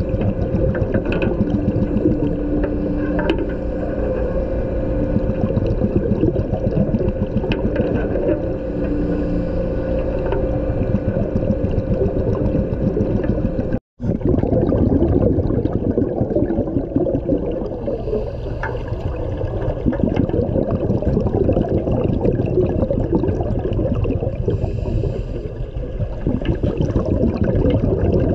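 Underwater sound heard through a camera's housing: a steady rush of seawater with the dive boat's machinery humming through the hull. There is a brief dropout about halfway through, after which the hum fades and a rougher rush of water takes over.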